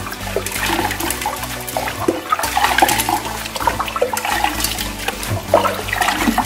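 Water splashing and sloshing in a toilet bowl as a hand stirs it and scoops up a handful of candies, water pouring back off the hand.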